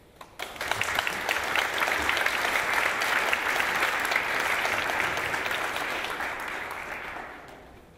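Audience applauding: a dense patter of many hands clapping that starts about half a second in and dies away near the end.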